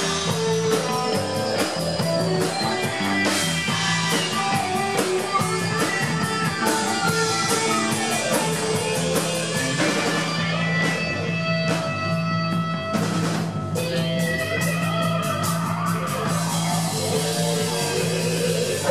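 Live rock band playing: electric guitar over a drum kit with busy cymbals, with a long falling sweep through the first half.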